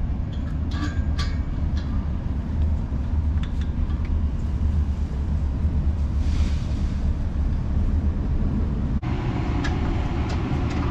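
Ram 2500 Power Wagon pickup driving: a steady low engine and road rumble. The sound shifts about nine seconds in, with more midrange noise after.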